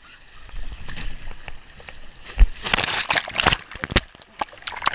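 A rider sliding down a short, wet plastic waterslide lane. Water rushes and splashes right against the camera, with a sharp thump about halfway through and the loudest burst of splashing just after it.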